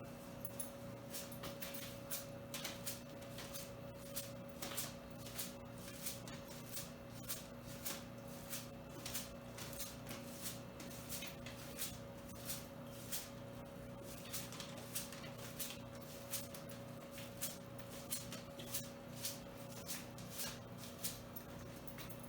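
Faint, irregular ticks and spatters, about one or two a second, as thinned drywall texture mix is flicked off a stiff broom-bristle brush onto a patched wall to make an orange-peel finish. A steady low hum runs underneath.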